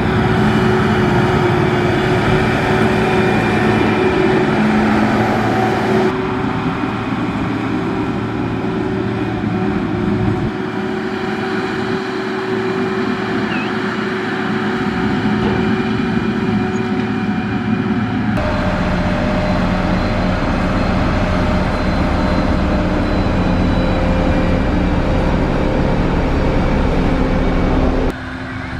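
Heavy construction machinery running steadily, a diesel engine note, with abrupt changes about 6, 10, 18 and 28 seconds in where one clip cuts to the next.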